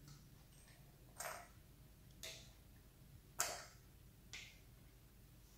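Small plastic Barbie DreamCamper toy cups being set down on the toy's plastic picnic table: four faint, light clicks about a second apart.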